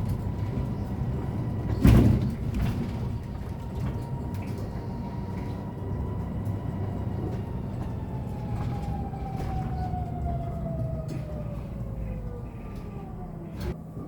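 Electric drive motor of a Hyundai Elec City Town battery-electric bus whining at a steady pitch while cruising over a low road rumble. In the second half the whine slides down in pitch as the bus slows, then turns upward again at the very end as it speeds back up. A loud thump sounds about two seconds in.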